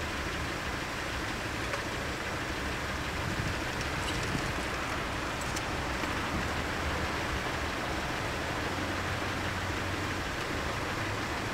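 Steady rushing vehicle noise with a low hum beneath it, at a closed railway level crossing.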